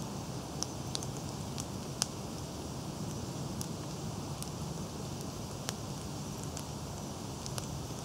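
Kindling of birch bark, twigs and wood chips burning inside a hollowed, split pine-log stove: irregular sharp crackles and pops, about a dozen, over a steady rushing background.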